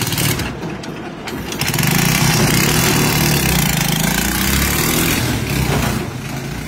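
Motorcycle cargo loader rickshaw's engine running, picking up and getting louder about a second and a half in as it pulls away, then easing off near the end as it drives off.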